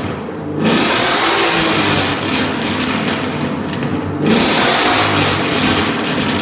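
Ford Mustang GT's 5.0 Coyote V8 running through a Carven X-pipe with dumps and no catalytic converters, essentially straight-piped, revving. It surges sharply about half a second in and again about four seconds in.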